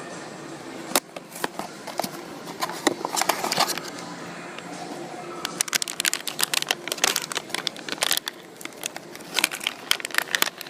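Packaging being torn open by hand: rapid crinkling and crackling from a small blind box and its wrapper, coming in two bursts.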